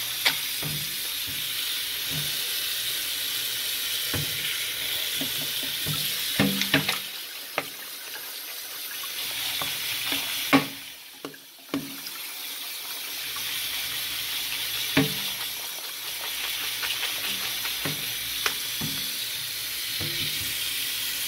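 Kitchen tap running onto cut green beans in a plastic colander in a stainless-steel sink: a steady splashing hiss with occasional short knocks. The water sound briefly drops away about halfway through.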